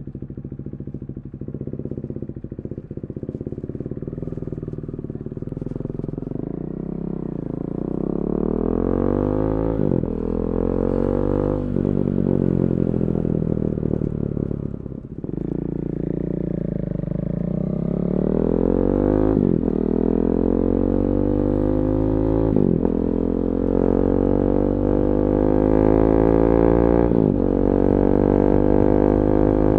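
KTM 390 Duke single-cylinder engine breathing through a decatted Akrapovic Moto2 slip-on exhaust, riding under acceleration. The engine note climbs in pitch and drops sharply at each gear change, about six times, growing louder toward the end.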